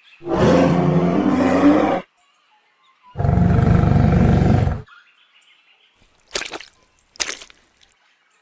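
Two long roars from a creature sound effect voicing a Saurosuchus, each lasting about two seconds, with a short gap between them. About two seconds later come two brief splashes, less than a second apart, as its feet step into shallow water.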